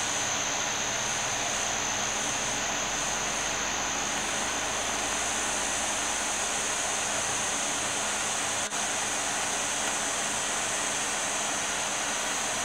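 Steady, even rushing hiss at a constant level, with a brief dropout about two-thirds of the way through.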